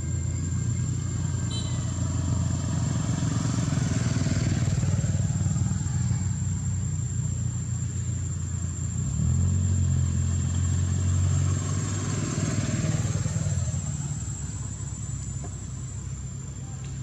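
Motor vehicle engines running steadily close by, with traffic swelling past twice, about four seconds in and again about twelve seconds in. The engine note steps up and grows louder around the middle.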